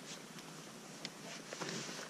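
A spoon clicking in a plastic meal pouch and the pouch rustling as someone eats from it: a couple of light clicks about a second in, then a longer rustle near the end.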